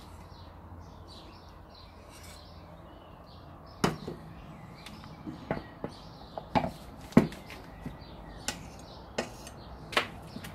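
Sharp clicks and knocks, about eight of them from about four seconds in, of a metal palette knife scraping wet acrylic paint off a painted wooden coat rack and knocking it off.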